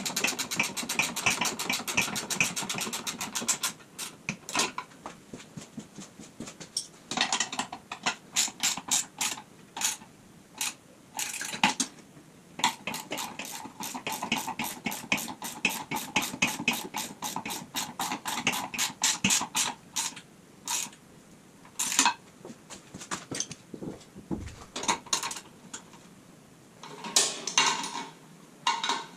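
Hand ratchet wrench clicking as nuts and bolts are turned, in fast runs of clicks broken by pauses and a few single clicks.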